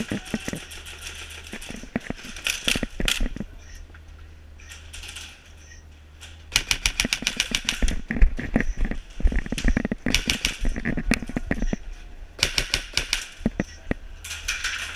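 Airsoft guns firing bursts of rapid, sharp clicking shots. The longest and densest volley starts about six and a half seconds in.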